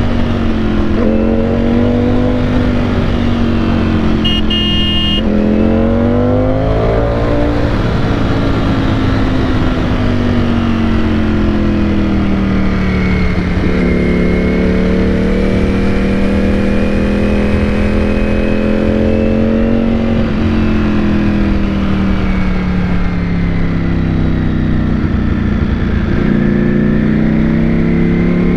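Ducati Panigale V4 S's V4 engine heard from the rider's seat in third gear, its pitch rising and falling as the throttle is opened and closed through curves. A horn sounds briefly about four seconds in.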